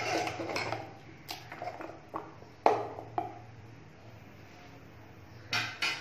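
A spoon stirring and scraping through thick curry gravy in a metal pot, with clinks and knocks of the spoon against the pot. The loudest knock comes a little under three seconds in, and two more come close together near the end.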